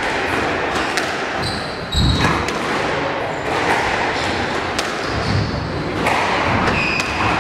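Squash ball knocked back and forth in a rally: sharp knocks of racket strikes and wall hits about a second apart, with a heavier thud about two seconds in. Short high squeaks, likely shoes on the wooden court floor, sound over a steady murmur from the spectators.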